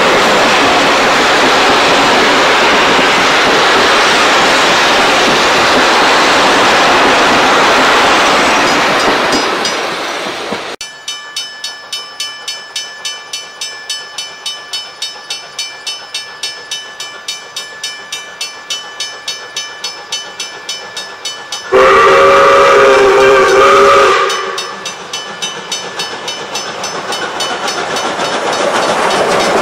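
Heritage train carriages rumbling past on the rails, then fading away. After that, South Australian Railways 520-class steam locomotive 621 approaches with its exhaust chuffing about three beats a second. About two-thirds of the way through it sounds its steam whistle for roughly two seconds, and it grows louder as it comes near.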